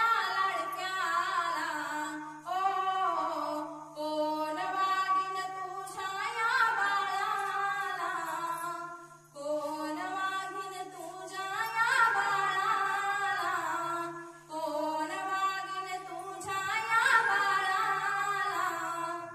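A woman singing a slow Marathi song in long, drawn-out phrases with held, gliding notes and short breaks between phrases. A steady low hum runs beneath the voice.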